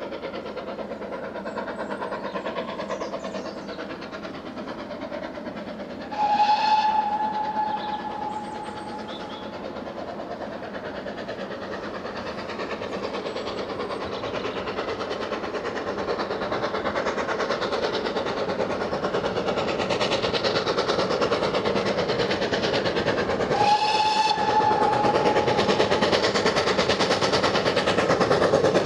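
GWR Manor class steam locomotive approaching with a train, its exhaust and wheel noise steadily growing louder, sounding two whistle blasts: one about six seconds in, and another about seventeen seconds later.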